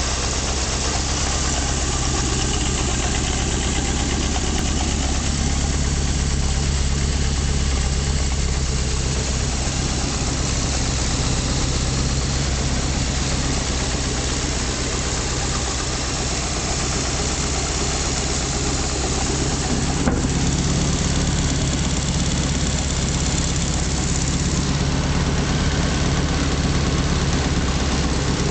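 Chrysler LH-318 V8 engine of a Hobart G600 engine-driven welder running steadily, with one brief click about twenty seconds in.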